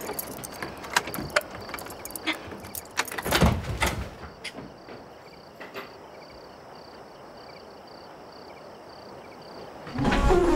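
Metal door handle and lock being worked: a run of sharp clicks and rattles, then a heavier thump about three and a half seconds in. After that a faint high chirping repeats steadily until a louder low sound near the end.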